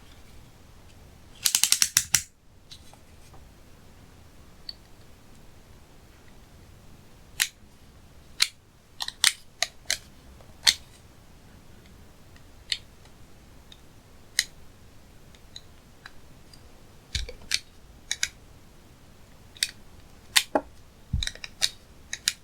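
Slime being pressed and worked by hand, air pockets in it popping with sharp clicks. A quick run of about ten pops comes a second and a half in, then single pops every second or two.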